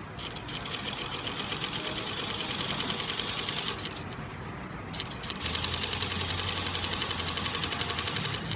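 Industrial wetsuit sewing machine stitching in two runs with a brief stop between them. Each run is a fast, even clatter of needle strokes, and the second run starts about five seconds in.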